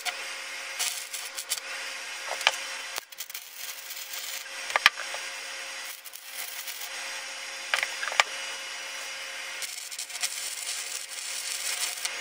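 Stick (arc) welding on steel tube: the electrode's arc crackles and sizzles steadily, with a few sharp pops and a couple of brief breaks in the arc.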